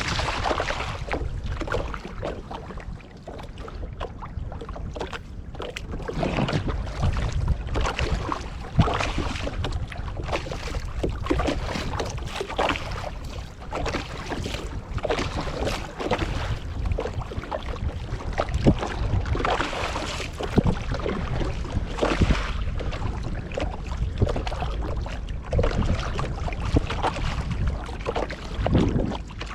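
Wind buffeting the microphone in a low rumble, with irregular small knocks and splashes of water against a wooden canoe.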